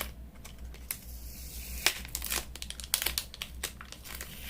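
An adhesive label being peeled off the flex cables inside a Vivo Y11 phone: a run of irregular small crackles and clicks, thickest in the second half, over a steady low hum.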